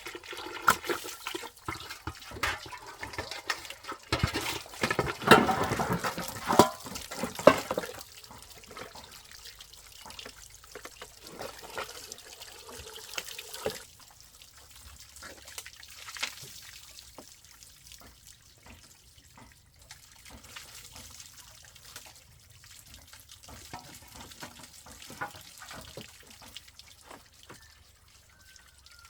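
Water splashing and pouring for the first eight seconds or so, then a quieter trickle and drips with scattered small knocks.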